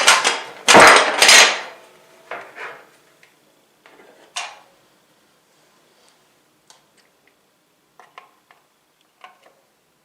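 Metal clattering and rattling as a desktop PC case is handled to free a loose CPU cooler back plate. A loud rattle in the first second and a half, a few softer knocks, then scattered light clicks and taps.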